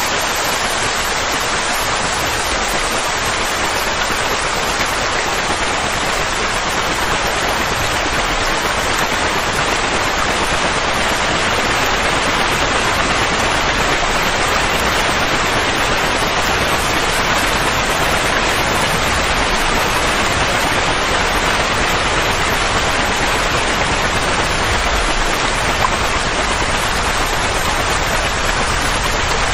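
Steady, unbroken rushing noise with no tone or rhythm, a soothing noise track of the kind played to calm a colicky baby.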